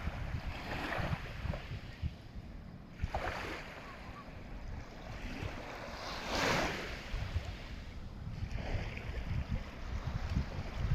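Sea waves breaking and washing on the shore, one surge every two to three seconds, the loudest about six and a half seconds in. Wind buffets the microphone throughout as a low rumble.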